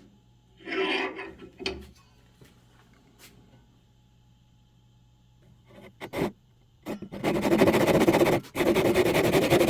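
Wood being handled and set in place, with a short scrape and a few knocks. Then, about seven seconds in, a Japanese pull saw starts crosscutting the wood with a steady rasp of quick, fine strokes.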